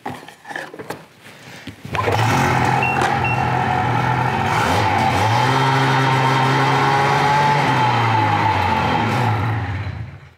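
Ski-Doo G4 snowmobile's two-stroke engine starts about two seconds in, runs steadily for about eight seconds and is shut off just before the end. It is run to turn the freshly adjusted track on the stand for a track-alignment check.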